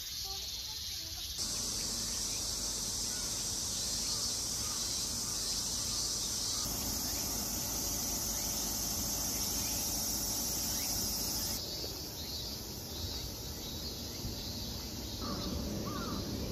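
A chorus of insects shrilling steadily, high-pitched. The shrill changes in pitch about six seconds in and fades out about eleven seconds in.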